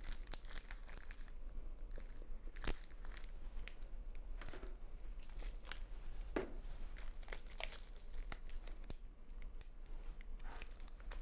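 Quiet rustling and clicking of syringe and needle packaging being handled and opened, with one sharper click about two and a half seconds in.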